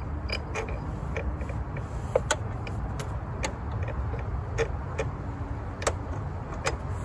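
Irregular light clicks and taps of a hand wrench working on metal battery fittings, about one or two a second, over a steady low rumble.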